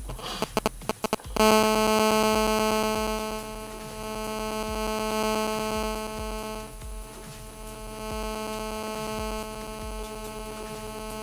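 Smartphone on speakerphone placing a call: a few quick clicks, then a steady electronic buzzing tone with many overtones from its speaker as the call waits to be answered. The tone is loudest at first and drops somewhat about halfway through.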